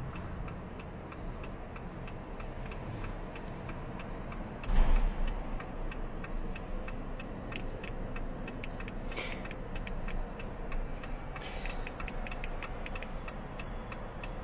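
Steady, even ticking from the car while a new key is being programmed through a bypass, typical of the turn-signal flasher. One louder thump comes about five seconds in, and a sharp click comes near nine seconds.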